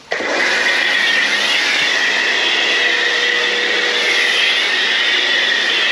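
Kärcher K2 electric pressure washer running and spraying foam through a foam cannon: a loud, steady hiss and motor whine that starts suddenly as the trigger is pulled.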